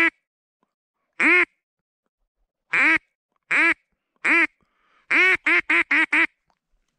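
Mouth-blown duck call imitating a mallard hen: single quacks spaced about a second apart, then a quick run of five quacks near the end.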